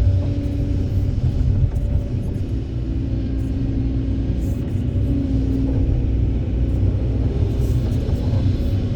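Kobelco SK200 excavator working: its diesel engine runs under load with a steady deep rumble, and a hydraulic whine shifts up and down in pitch as the machine moves.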